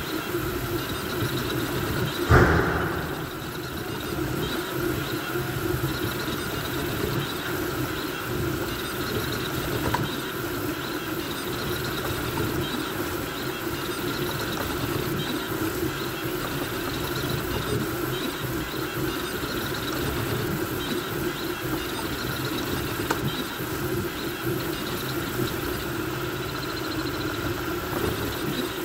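Voron V2.4 CoreXY 3D printer printing fast: the stepper motors and belts whir as the toolhead darts back and forth, over the steady hum of the cooling fans. A single thump about two and a half seconds in.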